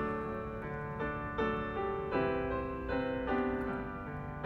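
Background piano music: notes and chords struck one after another at a slow, even pace, each fading before the next.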